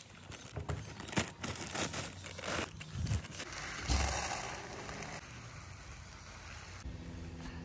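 A plastic bag of chick feed crinkling and rustling as a scoop works in it, then the feed pouring into a plastic tub as a steady rush of grains about four seconds in.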